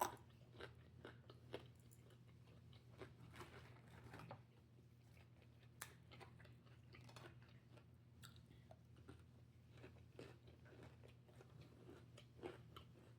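Faint close-up chewing and biting of food, with scattered short crunches and clicks.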